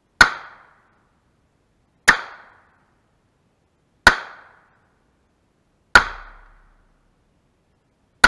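Five 10mm pistol shots, fired about two seconds apart, each a sharp crack with a short ringing tail. The last shot lands right at the very end.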